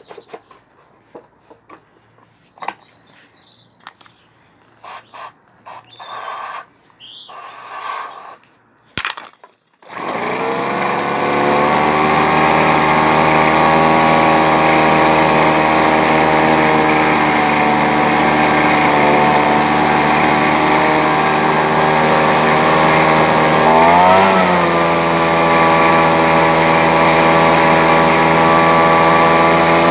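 A leaf blower's small petrol engine, primed with aerosol deodorant in place of starting fluid, catches about ten seconds in after some scattered handling noises and then runs steadily. Later it revs up briefly and settles back to an even run.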